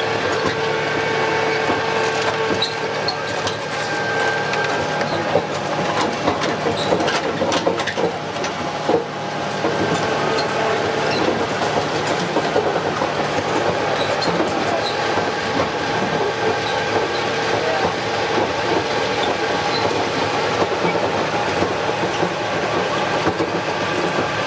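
Open utility vehicle's engine running steadily with a droning whine, while the vehicle's frame and seats rattle and clatter over a rough dirt track.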